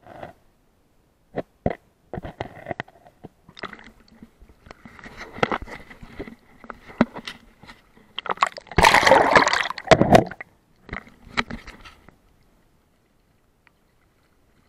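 Water sloshing and splashing with scattered knocks around a camera held in a shallow creek, then a loud splash lasting over a second, about nine seconds in, as the camera breaks up through the surface.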